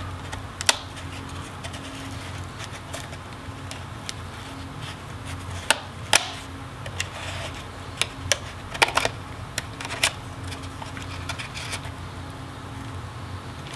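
Spudger prying and tapping at the fabric-covered face interface and plastic surround of an Oculus Quest 1 headset: scattered sharp clicks and taps, with a small cluster of them a little past the middle, over a steady low background hum.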